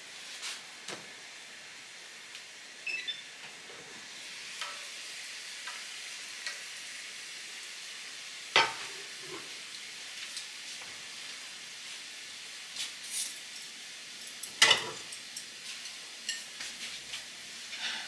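Food frying in a pan on the hob, a steady sizzle. Two sharp knocks of kitchenware, about halfway through and again a few seconds later, and a few light clinks.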